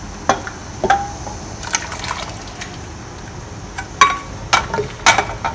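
Minced pork and hot soup poured from a small non-stick pot into a large enamel pot of soup, with a ladle scraping and knocking against the pots. There are a few knocks in the first two seconds and a louder cluster from about four seconds in, as the pot is held upside down and scraped out.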